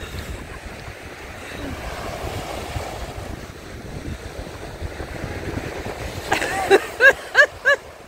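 Small waves of sea surf washing onto a sandy beach, with wind buffeting the microphone. Near the end come five short, loud, high-pitched calls in quick succession, each rising and falling in pitch.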